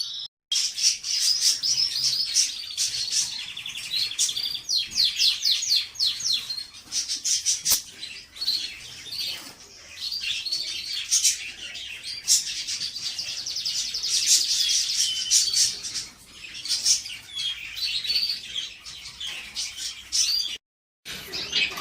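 Domestic canaries singing together: dense, overlapping rapid trills and chirps. The song stops dead twice, briefly, once just after the start and once near the end.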